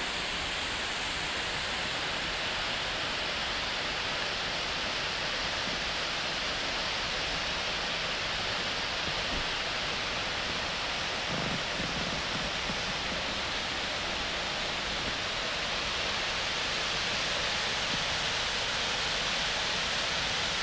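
Mountain river rushing over rocks: a steady, even rush of fast-flowing water.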